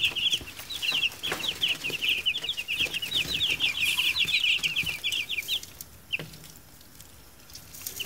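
Eight-day-old broiler chicks peeping, a fast, dense run of short high peeps that dies away about six seconds in, followed by a single light knock.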